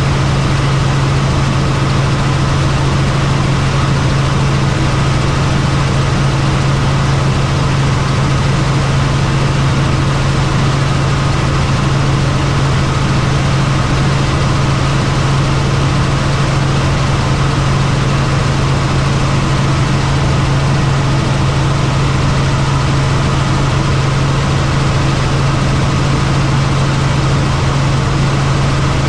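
Helicopter engine and rotor running steadily, heard from inside the cabin: a strong, even low hum with a broad hiss over it and no change in pitch.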